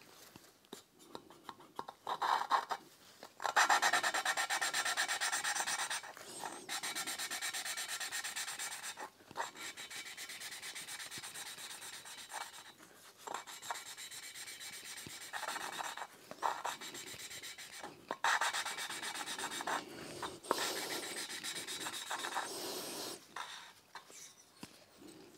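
Valve being hand-lapped into its seat on a Honda F20C cylinder head: a suction-cup lapping stick spun back and forth between the palms grinds the valve against the seat in fine lapping paste, in spells of several seconds with short breaks between. The grinding is smooth, the sign that valve and seat are bedding in.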